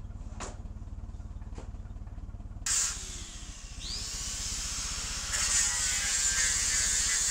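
Forklift engine idling with a steady low pulse. About three seconds in a short noisy burst is followed by a hiss that builds and grows louder as the forklift lifts a 1,200-pound load.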